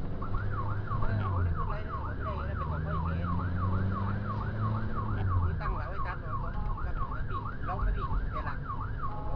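Emergency vehicle siren in its fast yelp mode, sweeping up and down about three times a second, briefly holding a steady tone near the end. A vehicle engine runs underneath.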